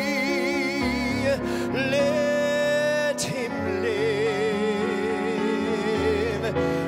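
A man singing a slow musical-theatre ballad in long held notes with a marked vibrato, accompanied by grand piano.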